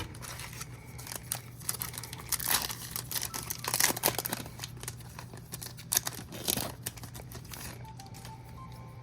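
Wrapper of a Topps Big League baseball card pack crinkling and tearing as it is opened and handled, in irregular crackly bursts that are loudest about two and a half to four seconds in and again around six seconds.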